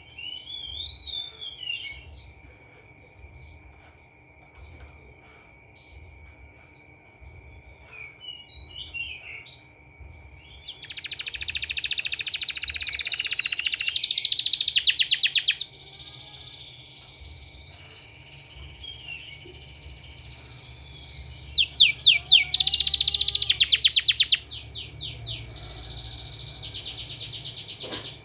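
Domestic canary singing: scattered short chirps and whistled notes, then two loud, very fast trills, each lasting a few seconds, about a third of the way in and again past the middle.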